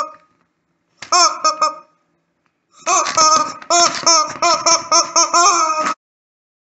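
Rubber chicken squeezed in quick, honking squawks: a short run of about four about a second in, then a longer run of about a dozen that stops abruptly near the end.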